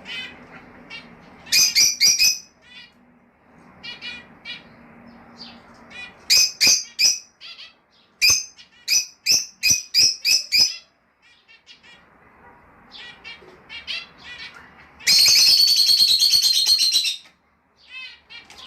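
Lovebirds calling: groups of sharp, shrill chirps repeated several times a second, with a loud stretch of about two seconds of continuous chattering near the end.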